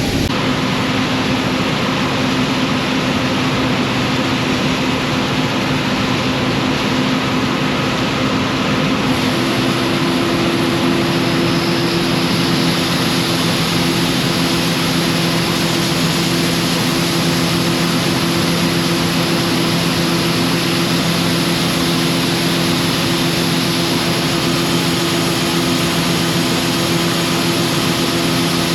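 Combine harvesting corn: a steady, loud machine drone with several held hums. About nine seconds in, another, higher hum joins in.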